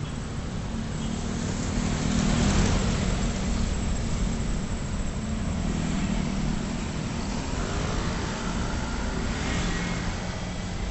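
Road traffic on a busy city avenue: a steady rumble of engines and tyres, with passing vehicles swelling louder about two seconds in and again near the end.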